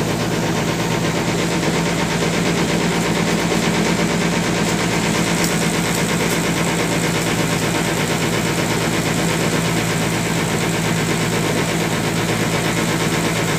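Small passenger ferry's engine running steadily under way, heard from aboard as an even drone with a low hum.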